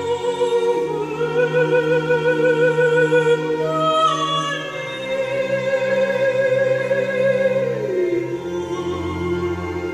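Operatic soprano singing long, held notes with wide vibrato over orchestral accompaniment, played back as a music sample through small loudspeakers. The voice steps down in pitch near the end.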